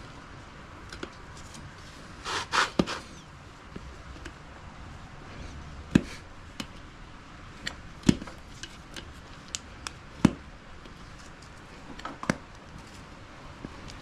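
Metal hand tools clicking, scraping and knocking against a wheel rim as a tight tire is pried off with flathead screwdrivers and a spanner wrench. There is a short scraping rattle about two seconds in, then single sharp knocks about every two seconds.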